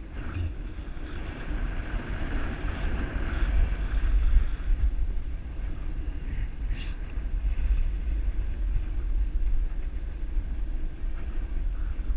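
Wind rumbling over the microphone of a camera carried by a skier moving downhill, with the hiss of skis sliding on packed, groomed snow. It grows louder about four seconds in.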